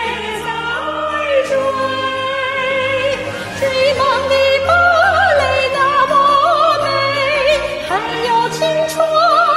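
A song: a woman singing in an operatic style with wide vibrato, held notes gliding between pitches, over steady instrumental accompaniment.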